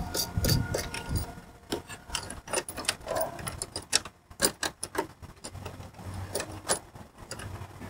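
Small metal parts clicking and tapping as an emblem bracket and nut are fitted by hand onto a bolt through a car's front grille: quick, irregular ticks.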